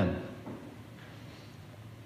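A man's spoken phrase trailing off in the first moment, then a pause with only faint room tone and a low steady hum.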